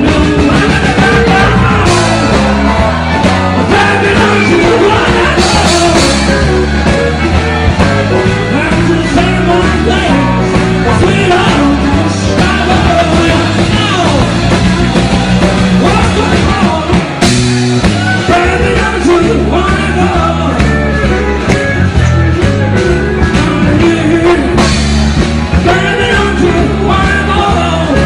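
Live blues-rock band playing, with a man singing lead into a microphone over the band.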